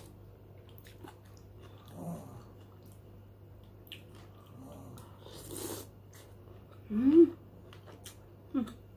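Eating sounds: a metal spoon clicking against a ceramic soup bowl, with a brief noisy slurp of broth about five and a half seconds in. About seven seconds in comes the loudest sound, a short rising voiced sound, and a shorter voiced one comes just before the end.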